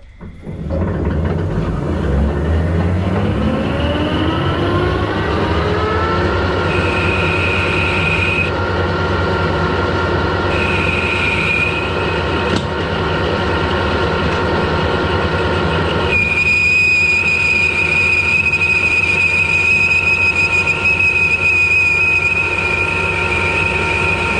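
Metal lathe starting up, its motor and gearing rising in pitch as it spins up over the first few seconds, then running steadily while a boring bar cuts the bore of an EN8 steel wheel. A high squeal from the cut comes and goes from about seven seconds in, then holds steadily from about sixteen seconds: the boring bar, fitted with an oversize cutter clamped by a makeshift washer, starting to chatter.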